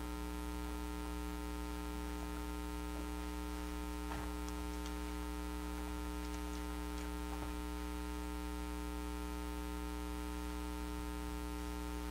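Steady electrical mains hum. Faint rustles of Bible pages being turned come a few times, around the middle.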